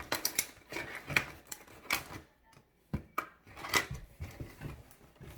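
Clicks, taps and rustles from someone handling a homemade cardboard vending machine and turning its twist knob, made from a plastic water bottle's bottom. A sharper knock comes about three seconds in.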